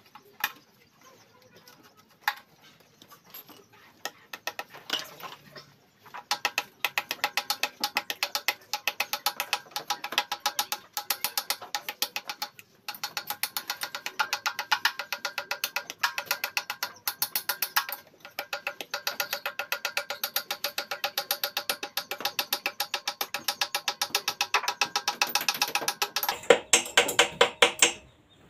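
Long, even run of sharp metallic clicks, about four or five a second, from a hand tool tightening the carburetor mounting on a Yamma 18 HP boat engine. It pauses briefly twice and ends with a few heavier clicks.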